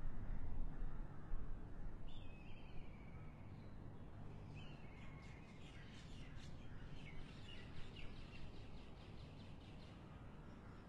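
Wild birds calling over steady outdoor background noise: a short falling call about two seconds in, then a quick run of repeated high notes from about halfway through to near the end.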